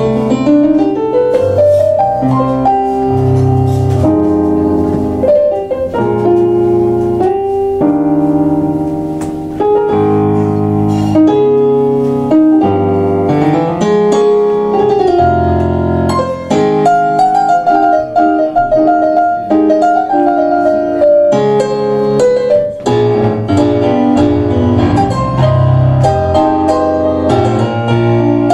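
Two keyboards, one of them a Kawai MP6 stage piano, playing a tango together in a piano sound: full chords with a moving melody line and sustained notes.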